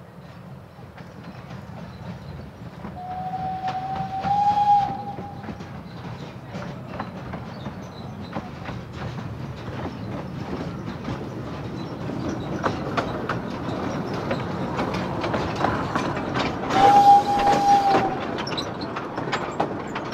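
A 600 mm narrow-gauge train running and growing louder as it approaches, its wheels clicking over the rail joints. It sounds a single-tone whistle twice, about three seconds in and again near the end.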